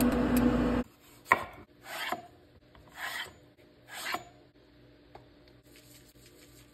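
Knife cutting lengthwise through zucchini on a wooden cutting board: four short slicing strokes about a second apart, the first with a sharp click. A steady hum in the first second comes before the cuts.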